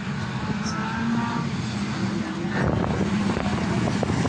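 Several motor vehicle engines running at once at a banger racing meeting: a steady low drone that becomes rougher and a little louder about halfway through.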